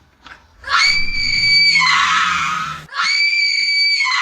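A person screaming: two long, high-pitched screams, the second starting right after the first.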